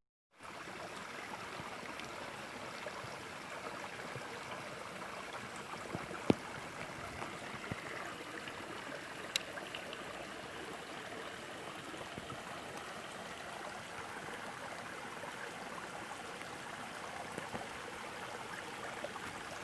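Steady rush of running water from a stream, with one sharp click about six seconds in.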